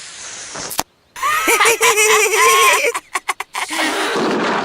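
A cartoon character's drawn-out, wavering non-word vocal sound, framed by a rising hiss with a sharp click before it and a few quick clicks and a hiss after it.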